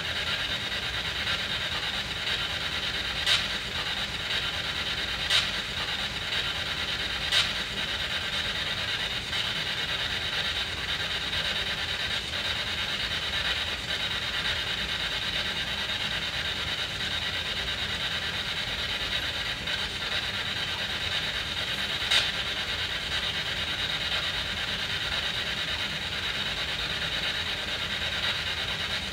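SB7 spirit box sweeping the radio band, a steady hiss of static with a few sharp clicks, three in the first eight seconds and one more later on.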